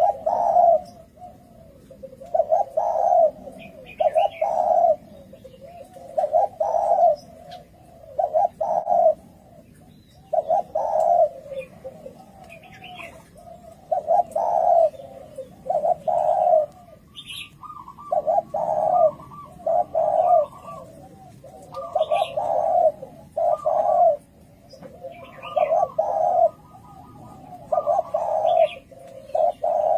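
Spotted doves cooing in a steady repeated series, a coo phrase about every one to two seconds: the challenge calls of rival males. Faint chirps of small birds sound between the coos.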